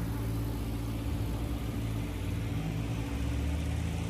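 City street traffic: a car engine running steadily as cars pass.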